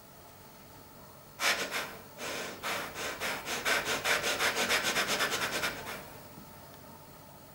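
A woman breathing in short, rasping breaths. The first two come about a second and a half in, then a long juddering breath pulses about six times a second and stops abruptly near the six-second mark.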